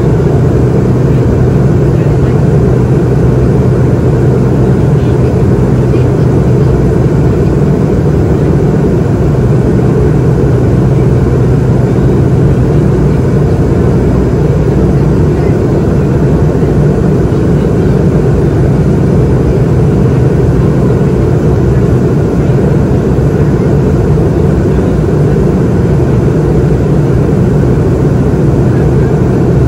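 Steady cabin noise inside a McDonnell Douglas MD-88 in flight: a loud, even rush of airflow over the fuselage with the low drone of its tail-mounted Pratt & Whitney JT8D turbofans and a steady low hum.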